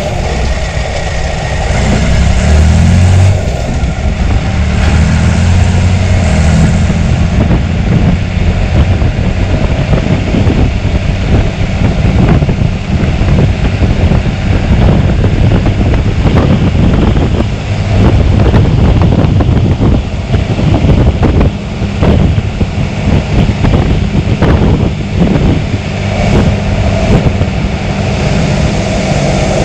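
John Deere 3350 tractor's six-cylinder diesel engine running steadily, its note shifting a couple of seconds in.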